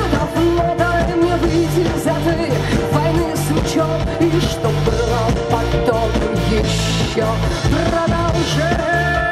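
Live rock band playing through a PA system: electric guitars, acoustic guitar, bass and a drum kit, in a continuous loud passage.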